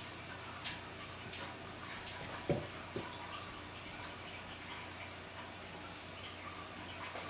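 Electronic cat toy sounding four short, high-pitched, bird-like chirps, one every one and a half to two seconds, as a cat bats at it. A low thump about two and a half seconds in.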